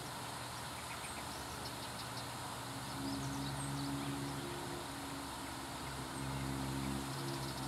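Water pouring through a river floodgate: a steady rushing hiss. A low engine hum swells about three seconds in and again near the end, and a few faint high bird chirps sound over it.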